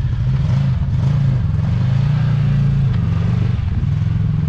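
Side-by-side UTV engine working under load as the machine crawls slowly up a rock face, a steady low drone that swells a little in the middle.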